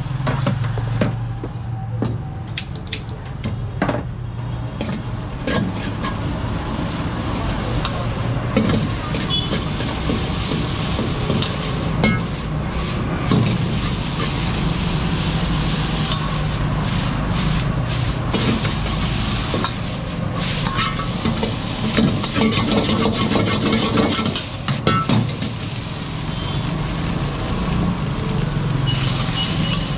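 Noodles sizzling in a large steel wok while a long-handled metal ladle stirs and scrapes them, with repeated clanks of the ladle against the wok. A steady low hum runs underneath.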